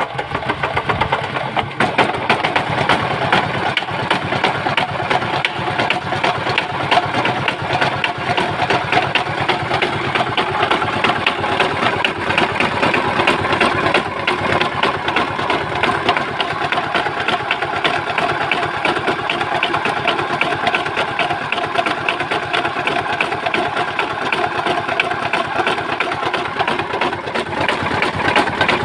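Old West German Hatz 790 diesel engine running steadily with a rapid, even beat, coming up to speed in the first second or two.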